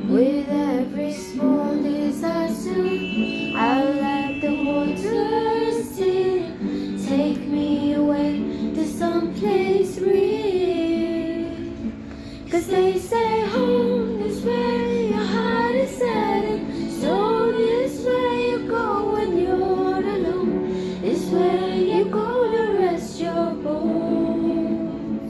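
Music: a woman singing a slow melody over held instrumental chords.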